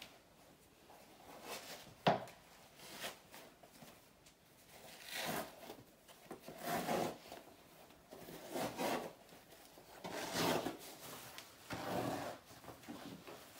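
A sheepskin being worked by hand: a brush or comb drawn through the fleece and the skin shifted on the table, making irregular rubbing strokes every second or two, with a sharp click about two seconds in.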